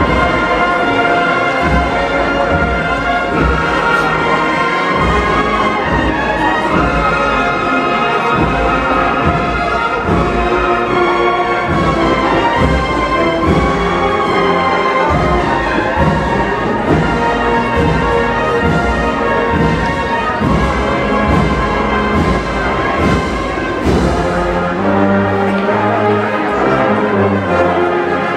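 Brass band playing a slow processional march: held brass chords over a regular drumbeat, with deep low brass notes coming in near the end.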